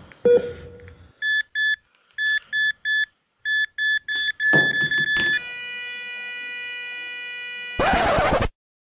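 Heart-monitor sound effect: short electronic beeps coming closer and closer together, then a long unbroken flatline tone from about five seconds in, cut off near the end by a short burst of static hiss.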